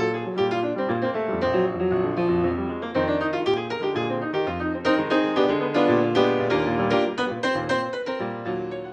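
Solo piano music, a steady flow of chords and melody notes that dies away near the end.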